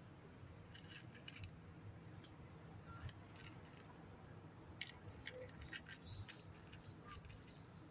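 Tabby cat crunching dry kibble: faint, irregular small crunches and clicks as it chews and picks pellets off a plastic plate.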